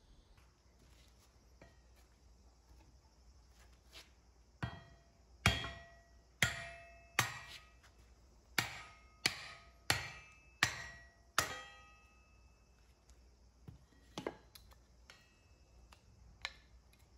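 A hammer striking a log set in a steel kindling splitter to split firewood: about nine sharp blows in quick succession, each with a short metallic ring. A few lighter knocks follow near the end.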